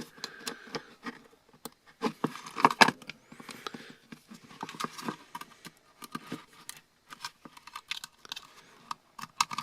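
Screws being worked out of a laptop hard drive's metal case with a small screwdriver: irregular small metallic clicks and taps, the busiest about two to three seconds in.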